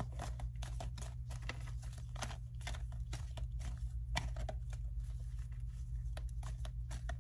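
A deck of oracle cards being shuffled by hand: a long run of irregular soft card clicks and riffles. A steady low hum sits underneath.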